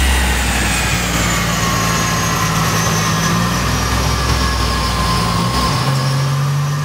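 Turbocharged 4.2-litre stroker Holden Ecotec V6 on a chassis dyno winding down after a full-power pull. The engine note drops away while a high whine falls steadily in pitch as the drivetrain and rollers spin down, and the engine settles to a steady idle near the end.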